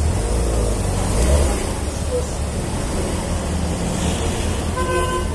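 Motor scooter running at low speed in traffic, with its engine hum and road noise mixed with the sound of surrounding cars. Near the end a short, steady multi-pitched tone sounds for about half a second.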